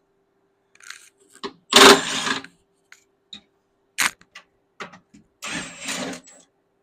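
Hand tools and metal parts being handled on a skid steer's chain case cover: two bursts of scraping, a sharp metallic clink about four seconds in, and scattered small ticks, over a faint steady hum.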